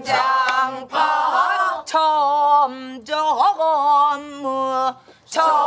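A class singing a pansori phrase in unison after their teacher's lead. The sung notes are long and held with a wavering vibrato, and there is a sharp dip-and-rise ornament about three and a half seconds in.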